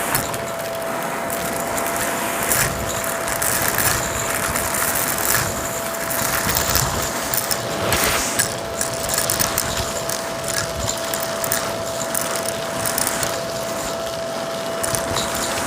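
Shark Rotator vacuum running with its open hose, sucking up crunchy debris: a steady whine under dense, irregular crackling and clicking as bits rattle up the hose.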